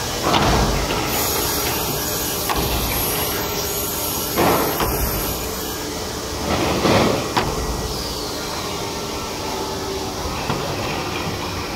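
Film-faced plywood sheets being pulled out of a multi-opening plywood press and slid across the stack, three long scraping swishes with a few sharp knocks, over steady factory machine noise.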